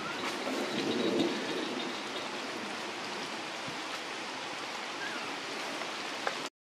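Steady, even rushing forest ambience with no voices, like rain on the canopy, with a few faint short chirps. The sound cuts out abruptly near the end.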